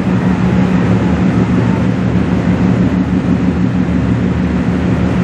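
Lake freighter Lee A. Tregurtha passing close, its engines and machinery making a steady low drone with a constant hum, over an even hiss.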